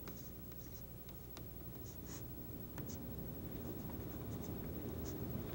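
Chalk writing on a chalkboard: faint, short scratchy strokes and a few sharp taps as letters are written, over a low steady hum.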